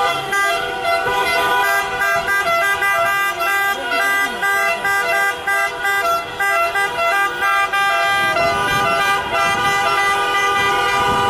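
Several car horns honking at once at different pitches in quick repeated blasts: celebratory honking from a victory car procession.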